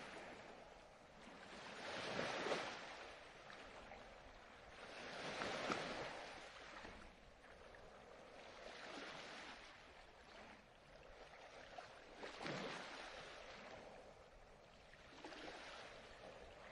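Faint ocean surf: waves swelling and washing out about every three seconds.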